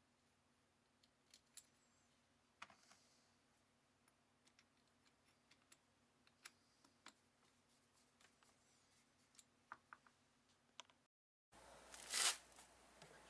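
Near silence with faint, scattered clicks and light taps of small parts and tools being handled during carburettor work. After a break about 11 seconds in, a short louder rustle.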